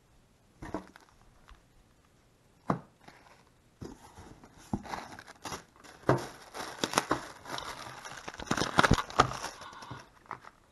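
Plastic parts bags and bubble wrap crinkling and rustling as parts are taken out of a cardboard box, with knocks as packages are set down on a wooden table. There are a few separate knocks in the first three seconds, then nearly continuous rustling from about four seconds in until near the end.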